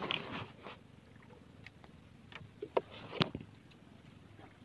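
Scattered light clicks and knocks of handling aboard a small outrigger fishing boat, with two sharper knocks about three seconds in, over a faint low noise of sea and wind.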